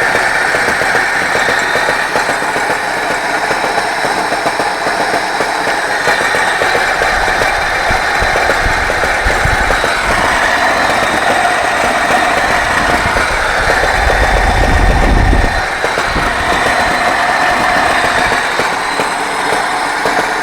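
ZMZ-24D petrol engine running with a rapid knock. Its note rises twice, around seven and fourteen seconds in.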